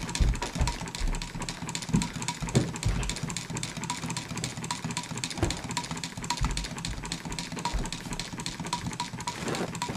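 Homemade Stirling engine running, its flywheel and bent crankshaft ticking in a rapid, even rhythm of several clicks a second. A few dull knocks come in between from the engine being handled.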